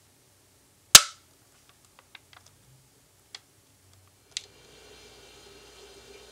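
One sharp, loud clack of kitchenware, such as the glass mixing bowl or spatula knocking against a hard surface, about a second in. A few light clicks and taps follow, and a faint steady hum comes in near the end.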